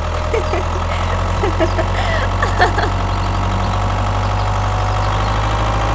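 An engine idling steadily, a low even drone with faint short sounds over it.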